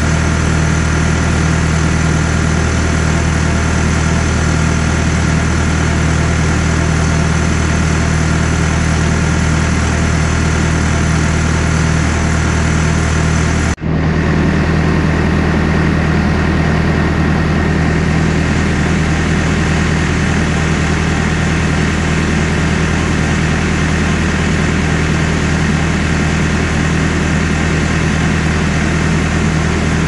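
Diesel engine of a CAT 420E backhoe idling steadily, with a brief drop-out about fourteen seconds in.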